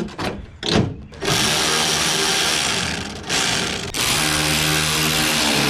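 Cordless drill running to drive in a taillight housing's mounting screws, in two runs of about two seconds each with a short pause between, the second run lower in pitch. A few light handling clicks come before the first run.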